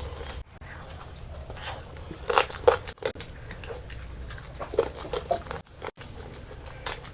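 A person eating close to the microphone: biting and chewing food with a run of short, crisp crunches, the loudest about two and a half seconds in.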